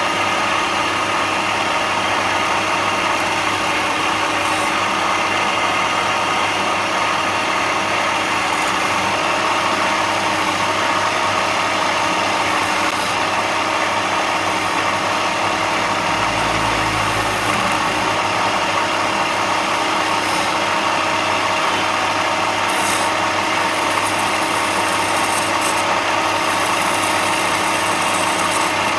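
Woodworking power tool running steadily, its motor holding an even hum, with a brief deeper rumble about halfway through.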